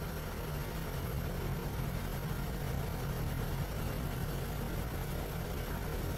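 Steady low drone of aircraft engine and rotor noise, heard from inside the cabin.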